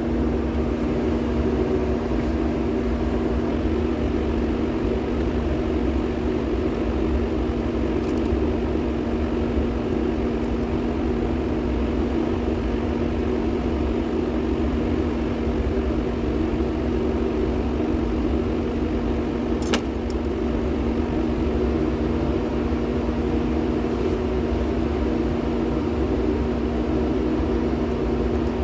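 Steady mechanical drone with a constant low hum, like shop ventilation or running machinery, with two faint clicks about eight and twenty seconds in.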